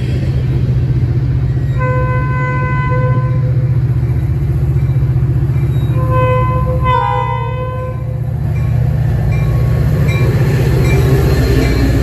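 Metra commuter train's diesel locomotive sounding its multi-tone air horn in two blasts, the first about a second and a half long, the second falling in pitch near its end as the locomotive passes. Under it runs the steady low rumble of the locomotive's engine, then the bilevel passenger cars rolling by with faint wheel clicks.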